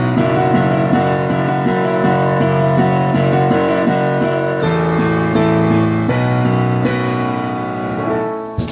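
Piano-sound keyboard playing a song intro in held chords with a steady run of notes. Near the end there is a sharp knock and the playing breaks off, a fumbled start that the player owns up to right after.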